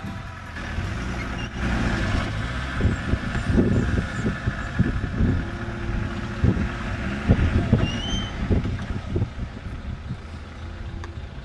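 Off-road 4x4 engine running, with a steady low rumble broken by irregular low thumps.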